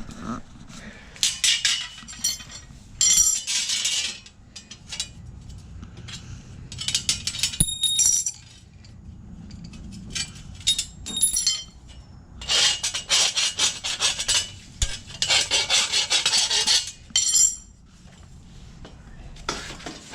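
Cordless drill driving screws in a series of short bursts, about eight, fixing steel reinforcement plates to a door.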